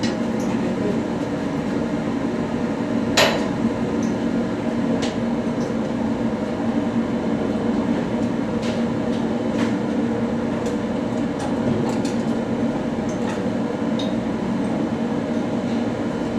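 Steady low machinery drone with scattered metal clinks and taps from metal parts and tools being handled, and one sharper knock about three seconds in.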